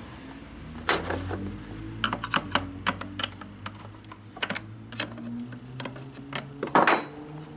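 Irregular clicks and clacks of hands handling a chainsaw's chain and bar, with a louder clatter near the end.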